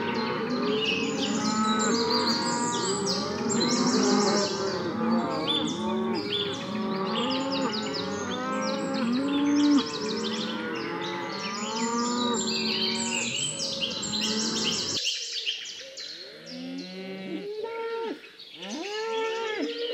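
A herd of cattle mooing, many calls overlapping, with birds chirping busily over them. About three-quarters of the way through, the dense background cuts off suddenly, leaving a few separate moos.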